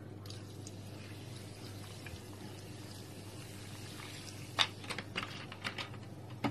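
Sprite poured from a plastic bottle onto raw chicken pieces in a bowl: a steady, faint pouring sound. A few short clicks and knocks follow about four and a half seconds in.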